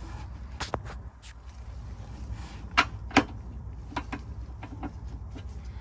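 Light metallic clicks and taps as crossmember nuts and bolts are handled and threaded in by hand, with two sharper clicks about three seconds in, over a low steady hum.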